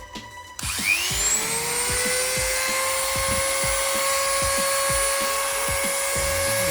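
Electric mini angle grinder switched on about half a second in, its motor whine rising quickly to full speed and then running steadily at a high pitch.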